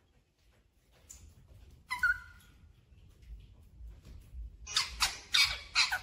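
Indian ringneck parakeet calling: one short call about two seconds in, then a quick run of loud squawking calls with gliding pitch near the end.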